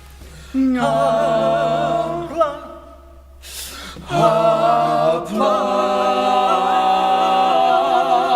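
A cappella vocal quartet singing in harmony: a short sung phrase, a brief pause, then a long held chord.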